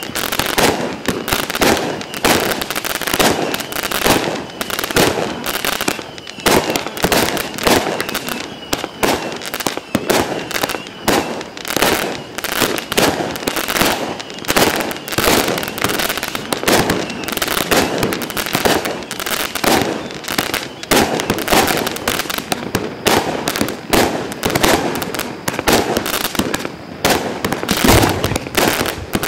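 A 32-shot consumer firework cake, the “Dead Man's Chest” (Сундук Мертвеца), firing its shots in quick succession. Launches and bursts follow one another with barely a pause.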